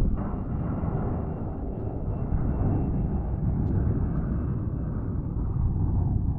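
Aircraft engine noise: a steady low rumble with a faint, thin high whine held throughout.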